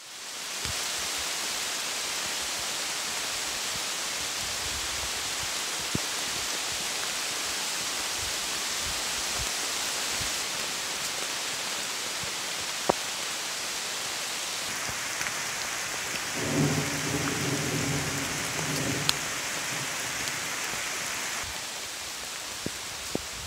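Steady rain falling on leaves and the trail, an even hiss that shifts slightly in level a few times. A brief low sound comes about two-thirds of the way through, and there are a few faint clicks.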